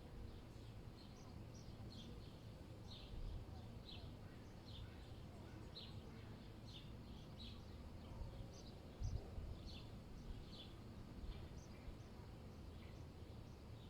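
Small birds chirping in short, high, repeated notes, one or two a second, over a faint low rumble of wind and distant city noise.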